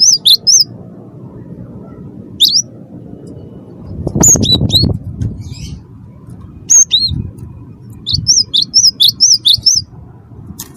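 A gelatik batu (cinereous tit) singing in short bursts of quick, high, repeated chirping notes, with pauses between the bursts. A low rumble underneath swells about four seconds in.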